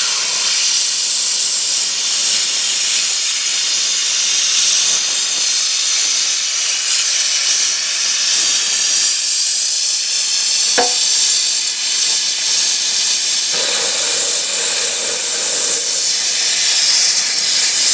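Hypertherm Powermax 1000 plasma cutter cutting a lathe bed: a loud, steady hiss, with one sharp click about two-thirds of the way through and a short lower tone joining soon after.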